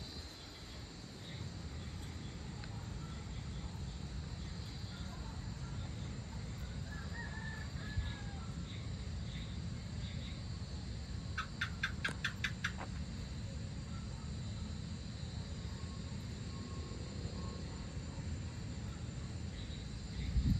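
Evening outdoor ambience: a steady high chirring of insects over a low, even rumble. A short bird call comes about a third of the way in, and about halfway through there is a quick run of about eight sharp clicking chirps.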